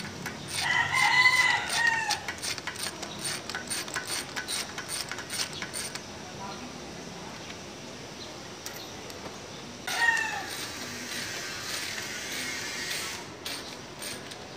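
A rooster crows about a second in and gives a shorter crow near the end. A run of quick, sharp clicks fills the first half.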